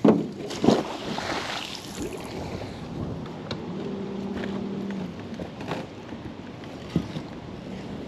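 Water and wind noise around a small boat, with a sharp knock at the start, a second just after, and another near the end.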